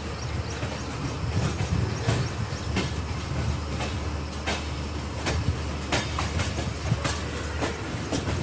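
An express train's coaches running at speed, heard from an open door or window: a steady low rumble with irregular sharp clicks of the wheels passing over rail joints.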